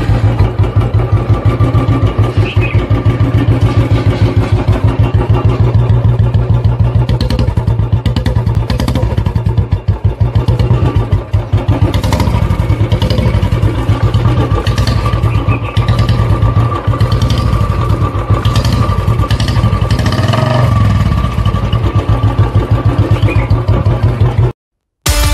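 Motorcycle engine running with a steady, even beat as the bike is ridden along, heard from the rider's seat. It cuts off suddenly near the end, and guitar music starts a moment later.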